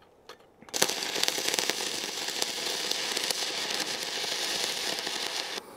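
Stick arc welding with a 3.2 mm electrode, run off car batteries wired in series for 36 volts. After two faint ticks, the arc strikes about a second in and crackles steadily, then cuts off suddenly near the end as the rod is pulled away.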